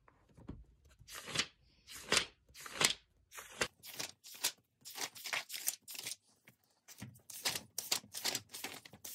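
Paper pages of a spiral-bound notebook being turned by hand: a quick series of rustles, about two a second, with a short pause about two-thirds through.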